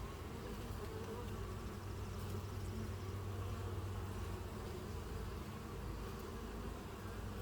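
Honey bees of an opened hive buzzing: a steady, even hum of many bees.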